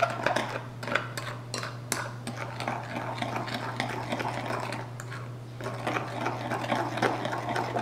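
Metal teaspoon stirring in a ceramic mug, clinking irregularly against the sides as it mixes instant coffee, sugar and hot water into a dark syrup, with a steady low hum underneath.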